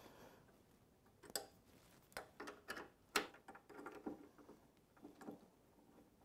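Faint, irregular metallic clicks and ticks of an Allen key working the mounting bolt of a Harley's chrome passenger foot peg as the peg is taken off.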